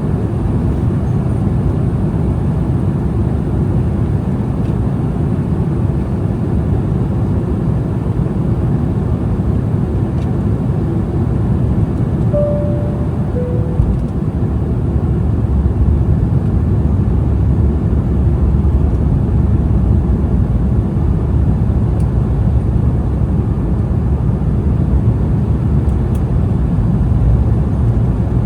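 Steady low cabin roar of an Embraer E175 airliner in flight, engine and airflow noise heard from a window seat. About twelve seconds in, a two-note cabin chime sounds, high then low.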